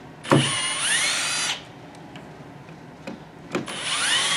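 Cordless drill backing out the screws that hold a vent-cutting template to the floor: two short runs, the motor's whine rising in pitch as it spins up, the second starting near the end.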